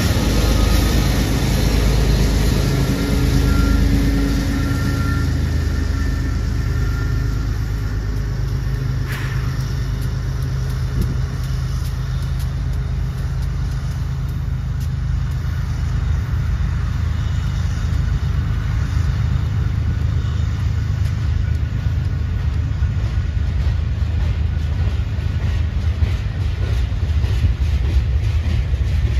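Freight train passing close by. Its diesel locomotives pass first with a low engine drone, then the freight cars roll past on the rails with a run of short wheel clicks.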